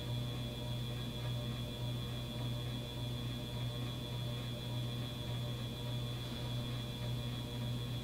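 An Evergo "Banana Fan" 52-inch ceiling fan running, its oil-bath motor giving a constant low buzzing hum that reverberates through the large blades.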